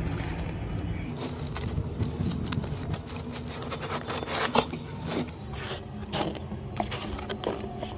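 Small knife cutting through the packing tape and cardboard of a shipping box, then the cardboard flaps being torn and pulled open by hand: irregular scraping, rubbing and tearing crackles.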